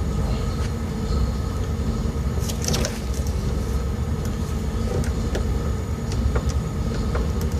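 A steady low mechanical hum with a few faint clicks and light metallic knocks, typical of a garage with a machine running.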